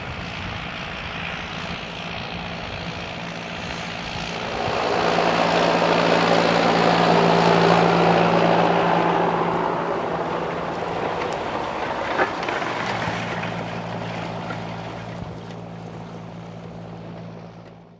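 John Deere four-cylinder diesel tractor engine working steadily under load in the field, growing louder about four seconds in as it comes close, then slowly fading away. A single sharp click partway through.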